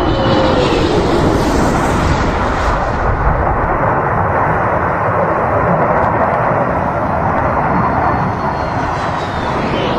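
Military fighter jet flying past, a loud continuous rushing jet noise with faint whining tones that fall in pitch, brightest during the first three seconds.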